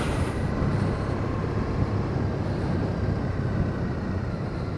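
Motorcycle engine running steadily as the bike rides along at low speed, with a brief hiss right at the start and the sound growing slightly quieter near the end.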